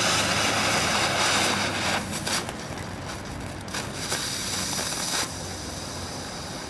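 Novelty ground firework shaped as a fire truck burning with a loud hiss, spitting sparks and later jetting a flame out backward, with a few sharp crackles in the middle; the hiss drops to a quieter level about five seconds in.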